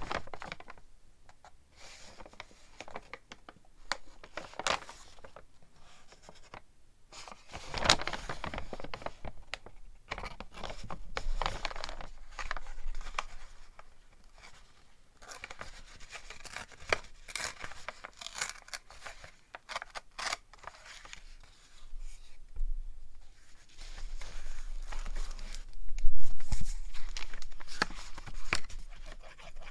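Sheets of vintage-style paper being handled by hand: irregular rustling and crinkling, with paper being torn.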